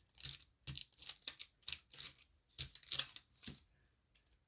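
Scissors snipping at tape in a quick, uneven run of short crisp cuts that stops about three and a half seconds in.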